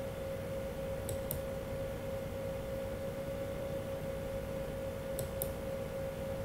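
Two pairs of quick computer mouse clicks, about four seconds apart, over a steady hum and low room noise.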